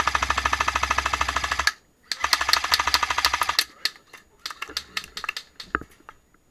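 Airsoft light machine gun firing full-auto: two long bursts of rapid, evenly spaced mechanical clicks with a short break between them, then a few shorter bursts and single shots that thin out near the end.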